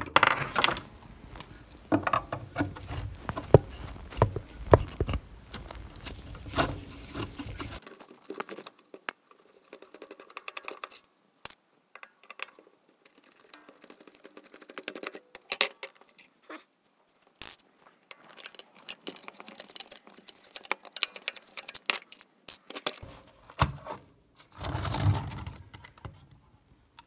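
A screwdriver working screws out of a Weller soldering station's sheet-metal case, with scattered small metallic clicks, scrapes and clinks as the case is handled and opened. The clicking is busiest in the first several seconds and sparse after that.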